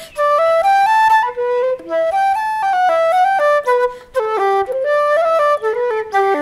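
Background instrumental music: a melody of short notes in quick runs, climbing and falling.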